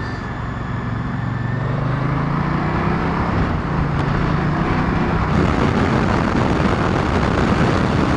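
Moto Guzzi V100 Mandello's 1042 cc liquid-cooled 90-degree V-twin running on the move, with wind and road rush over it. The engine note rises slowly, and the rush grows louder about five seconds in.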